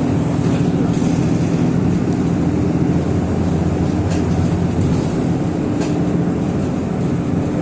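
Steady low hum of a moving vehicle heard from inside, with a couple of faint high ticks partway through.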